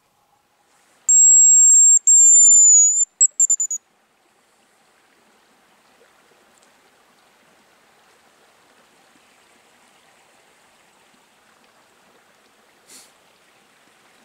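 Hazel grouse decoy whistle (a "Champion" call) blown close by, imitating the bird's song: two long, very high, thin whistles followed by a few quick short notes. After that only a faint steady hiss.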